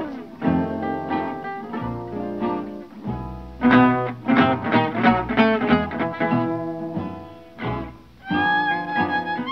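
Background instrumental music of plucked strings, with longer held bowed notes near the end.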